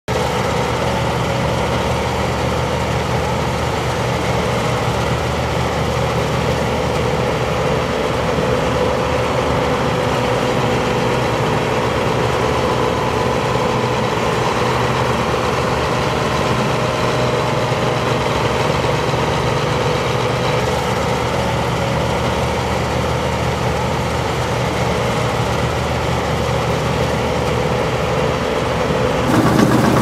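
New Holland 8060 combine harvester running steadily at work in barley, its engine and threshing machinery giving a constant drone while the unloading auger pours grain into a trailer. Near the end the sound shifts and grows a little louder.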